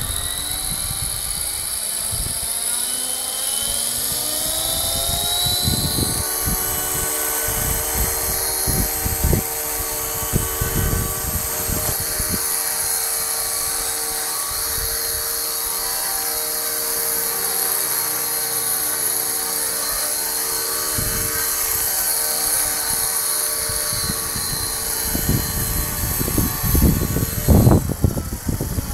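Motor and rotor of a small model Apache helicopter running: a whine that rises in pitch over the first few seconds as the rotor spins up, then holds steady. Low buffeting thumps run throughout and are heaviest near the end.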